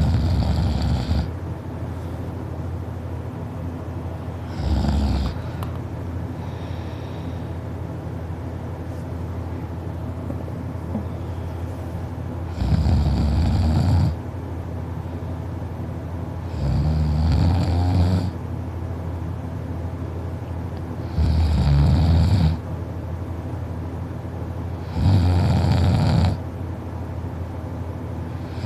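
A sleeping person snoring loudly: six snores, each a second or so long, most of them about four seconds apart, with one longer pause early on.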